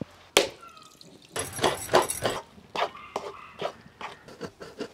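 A metal spatula scraping and clanking against a steel kadhai while stirring grated coconut, with sharp knocks and scattered clicks around it.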